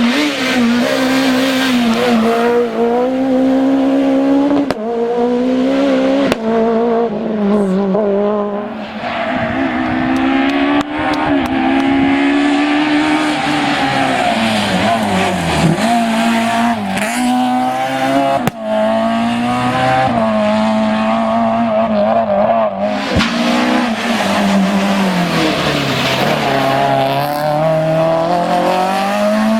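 Citroën C2 S1600 and C2 Maxi rally cars' high-revving four-cylinder engines at full stage pace, revs climbing and dropping again and again through gear changes and lifts off the throttle. It comes as a run of short clips with abrupt cuts.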